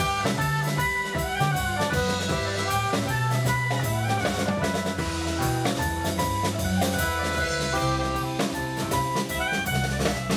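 Live band playing a ridée, a Breton dance tune in seven beats: soprano saxophone and clarinet carry the melody in held notes over drum kit, electric bass and keyboard, with a steady drum beat.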